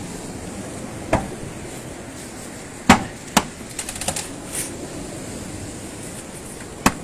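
Sharp knocks of hand demolition tools striking masonry, coming irregularly: one about a second in, two close together near three seconds, a few lighter ones soon after, and one more near the end.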